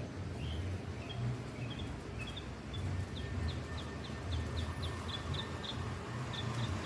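A bird chirping in short high notes, speeding up to a quick run of about five chirps a second from about three seconds in, over a low uneven rumble.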